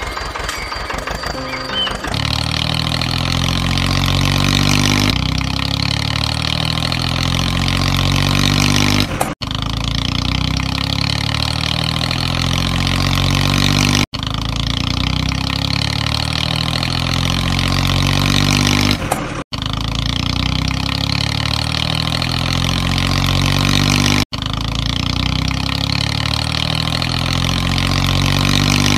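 Tractor engine sound effect dubbed over a plastic toy tractor: a steady low engine note that starts about two seconds in and is cut into stretches of about five seconds, each ending in a brief dropout, like a repeated clip.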